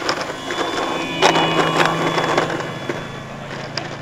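RC model biplane's engine running on the takeoff roll, a steady buzzing note that steps up in pitch and grows louder about a second in as the throttle opens.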